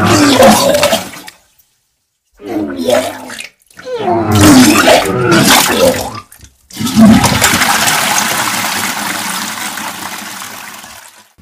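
A person retching and gagging in three bouts, then a toilet flushing, its rush starting loud about seven seconds in and slowly fading away.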